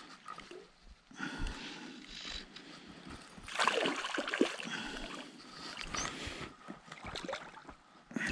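A hooked white-spotted char splashing and thrashing at the water's surface as it is played in on a fly line, the splashing loudest about three and a half to four and a half seconds in.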